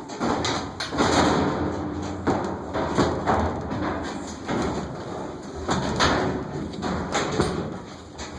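Sheet-metal washing machine cabinet being slid and worked into place: repeated scraping slides broken by knocks and thuds.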